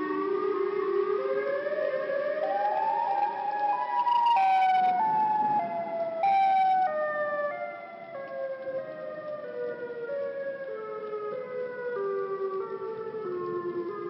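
Malfunctioning outdoor tornado warning siren sounding several tones at once. Instead of a smooth wail, its pitch climbs in steps for about four seconds, then comes back down in a slow series of small jumps, growing somewhat quieter.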